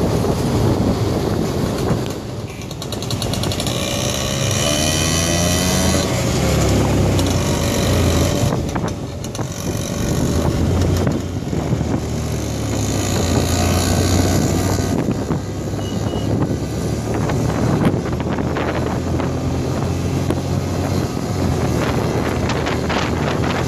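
Motorcycle engine running on the road with wind buffeting the microphone. The engine note rises and falls a couple of times with the throttle.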